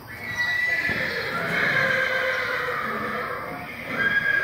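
A horse neighing: one long, wavering whinny, with a second call beginning near the end.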